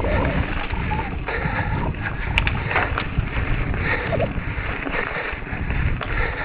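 Wind buffeting a moving camera, with rattling and scattered knocks from travelling fast down a rough trail.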